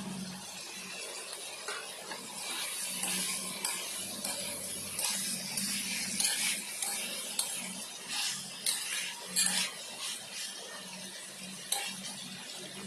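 A metal spatula stirring pork pieces in a non-stick kadai, scraping and clinking irregularly against the pan, with the sharpest clinks in the second half.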